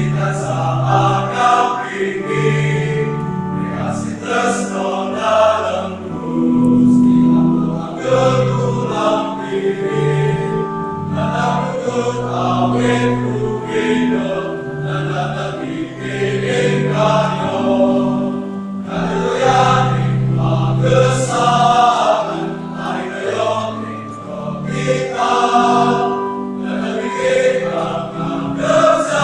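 Choir of young men singing a hymn in several-part harmony, with long held notes.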